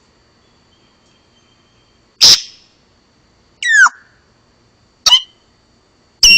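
Parrot calls: four short, loud calls after about two seconds of quiet. The first is a harsh squawk, the second a whistle falling in pitch, and the last two are sharp chirps.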